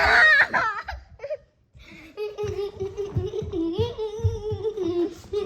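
A child laughing: a high squeal at the start, then after a brief pause a long run of rhythmic laughter at a steady pitch.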